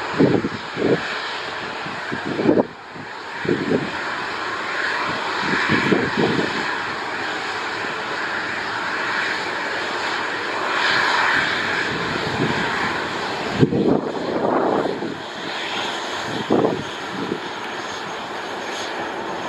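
Boeing 737-800's CFM56-7B jet engines running steadily at taxi power as the airliner turns onto the runway, with wind buffeting the microphone in gusts now and then.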